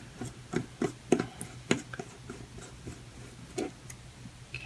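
Small clicks and taps of a hex driver working 6 mm screws into a carbon-fibre drone frame, a handful of sharp ticks at irregular intervals, the strongest about a second and a second and three quarters in.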